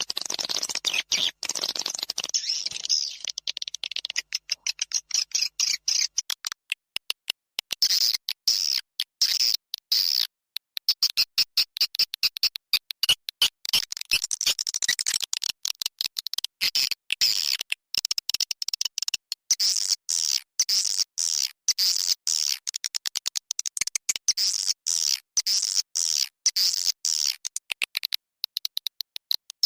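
Recorded swiftlet lure call: a dense, rapid chatter of short high chirps and twitters. It is the call played at swiftlet houses to attract swiftlets to roost and nest.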